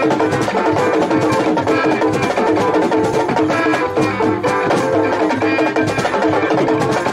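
Live band music, loud and continuous: an electronic keyboard played over busy percussion, amplified through a PA.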